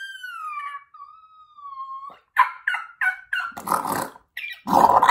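A man imitating a dog howling: one long howl that falls in pitch and holds for about two seconds, then four quick yips and some rougher, barking sounds near the end.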